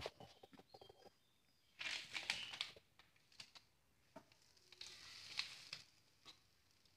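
Faint handling sounds of thin wheat-flour mande dough being stretched over the hands and spread onto a hot upturned clay pot. There are soft ticks at first, then two short hissy bursts, one about two seconds in and a longer one around five seconds.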